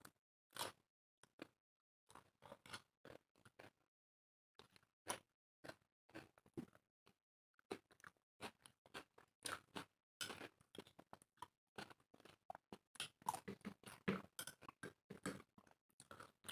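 Close-up chewing and biting of two people eating dry roti and chicken curry: many short, sharp mouth clicks, sparse at first, then coming thick and fast from about halfway.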